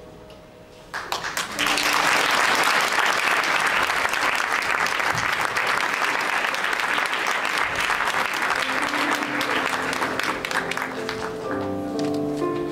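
Audience applause breaks out suddenly about a second in and dies away near the end. An electronic keyboard starts playing single notes under the last of the clapping.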